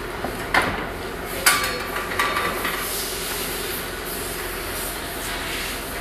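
Steel sawmill band saw blade knocking and ringing as it is handled onto a blade-sharpening machine, several metallic knocks in the first three seconds, over a steady machine hum.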